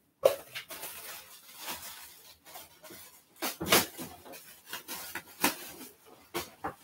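Scattered light knocks, clicks and rustles of someone moving about and handling things away from the microphone, over a faint steady room hiss.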